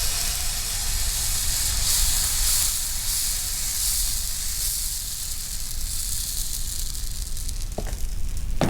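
A hot dosa tawa sizzling with a steady hiss that fades slowly.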